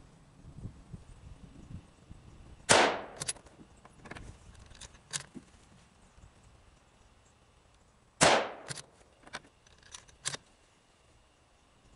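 Two rifle shots from a Savage 12 LRP bolt-action rifle in .260 Remington, firing 147-grain Hornady ELD-M handloads, about five and a half seconds apart, each trailing off in a short echo. After each shot come a few sharp clicks as the bolt is worked to eject the case and chamber the next round.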